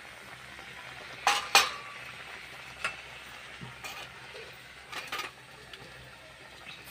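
Slotted metal spatula clinking and scraping against a metal kadai as thick pineapple chutney in sugar syrup is stirred, about six sharp knocks with the loudest pair about a second and a half in. Underneath is the faint steady bubbling of the boiling syrup.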